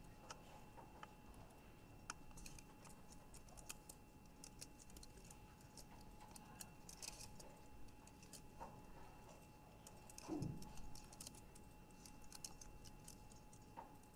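Faint, irregular clicking of keyboard keys as code is typed on a computer, over a quiet room with a faint steady hum. A brief low sound stands out about ten seconds in.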